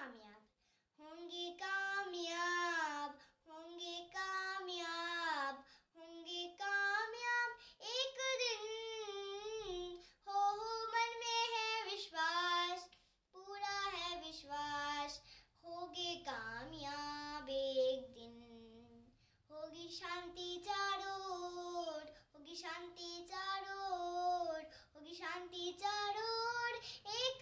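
A young child singing unaccompanied, in phrases of about two seconds with short breaks for breath between them.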